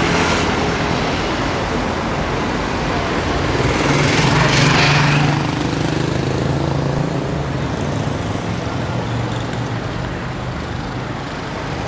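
City road traffic: a steady hum of cars driving past, with one vehicle passing close and loudest about four to five seconds in.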